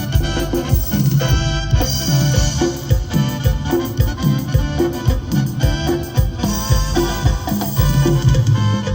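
Live band playing dance music: a steady bass and drum beat under a sustained lead melody.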